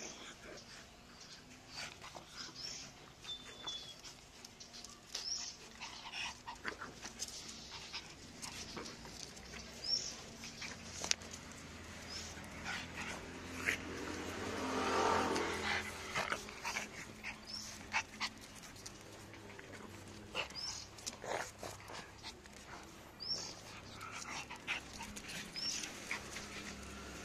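Two small dogs, a black pug and a tan-and-white dog, play-fighting: scattered short high yips and whimpers with growling, over scuffling and clicks, and a louder stretch about halfway through.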